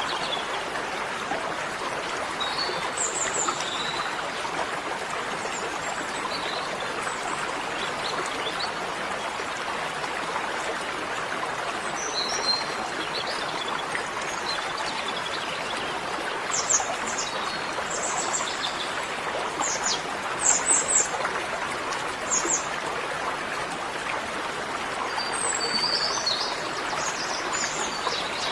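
Birds chirping in short, high calls, scattered and more frequent in the second half, over a steady hiss of background noise.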